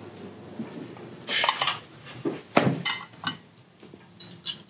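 Silverware and china plates clinking as a dinner table is set, in a few short clusters of sharp clinks.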